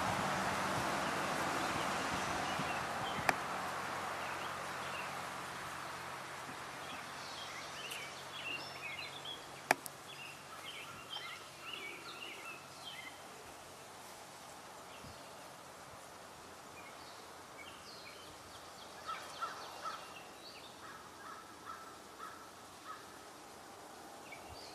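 Outdoor ambience of birds chirping in short clusters of calls, over a low rushing hum that fades away during the first several seconds. Two sharp clicks are heard, one a few seconds in and one about ten seconds in.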